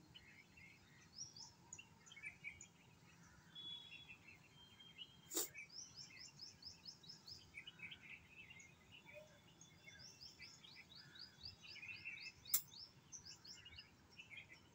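Faint chirping of small birds, many quick repeated calls, with two sharp clicks, one about five seconds in and one near the end.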